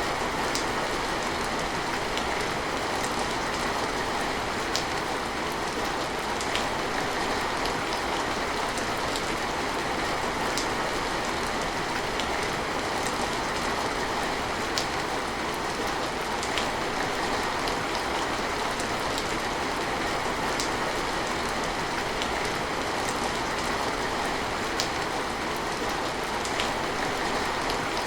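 Steady rain falling, an even hiss with scattered sharper drop ticks. No thunder is heard.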